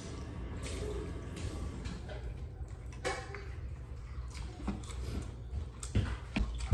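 Quiet mealtime eating sounds: food pulled apart by hand and eaten, with a few small taps and clicks against dishes, the sharpest about six seconds in, over a steady low hum.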